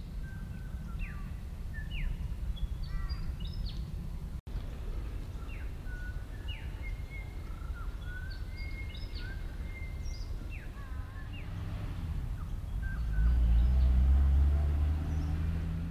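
Small birds calling in a scatter of short chirps and whistles over a steady low rumble. Near the end, a louder low rumble swells for about two seconds and fades.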